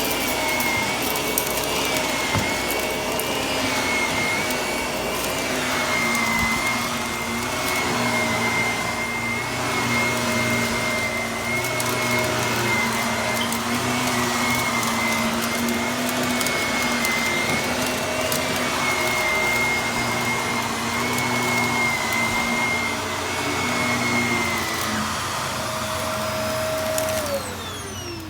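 Vacuum cleaner running with a steady high motor whine, crunching and crackling as it sucks up debris. Near the end it is switched off and the motor spins down with a falling pitch.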